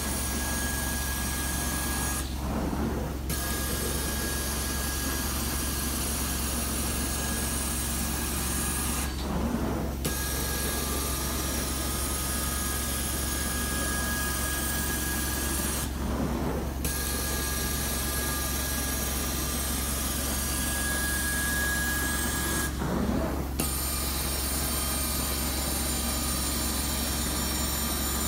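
Carpet extraction cleaning wand drawn over carpet: the machine's steady vacuum hiss and whine as it sprays and sucks water back up. The hiss drops away for about a second roughly every seven seconds, four times, between strokes of the wand.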